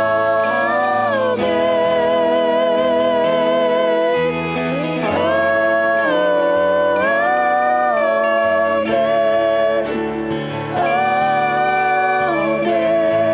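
Church worship band music: a man and a woman singing "Amen" together in long held notes, over electric guitar and band accompaniment.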